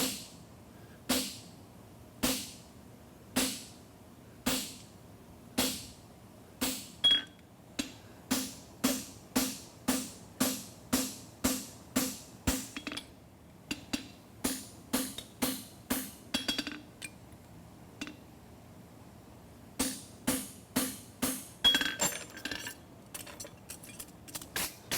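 Hand hammer striking a steel horseshoe on an anvil with ringing metallic blows, about one a second at first, then quicker at about two a second, with a short pause about three-quarters of the way through before the blows resume.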